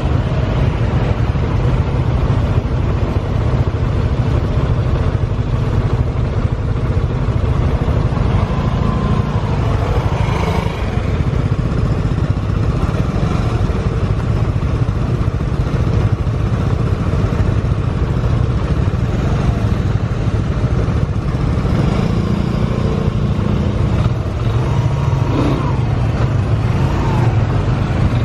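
Yamaha NMAX scooter's single-cylinder four-stroke engine idling steadily in stopped traffic. About ten seconds in, another motorbike's engine rises briefly as it squeezes past close by.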